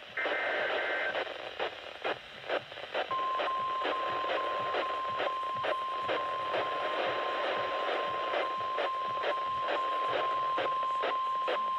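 NOAA Weather Radio alert coming in over a hissing, crackling radio signal. It opens with the last short burst of the SAME data header's screechy digital tones, then after a couple of seconds of static the steady 1050 Hz warning alarm tone sounds for about nine seconds, signalling that a new warning is about to be read.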